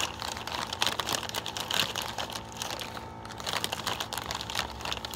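Crinkling of a Cheetos snack bag being handled, in irregular rustles and crackles.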